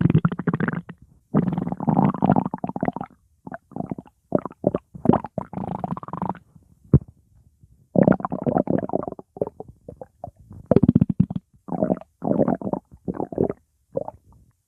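Stomach growling: a string of separate rumbles, some long and some short, stopping and starting with silent gaps between them, and a short sharp pop about seven seconds in.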